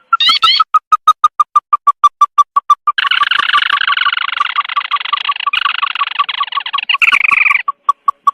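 Bird-trapping lure recording of the sintar mata merah's call: a fast run of short repeated notes, about seven a second. From about three seconds in, a dense chattering trill lies over them for some four seconds. A few short rising notes come at the start.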